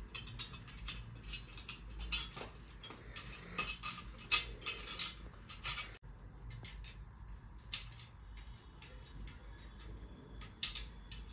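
Metal tubes of a white clothes-hanger stand being handled and fitted together: irregular clinks, taps and rustles during assembly.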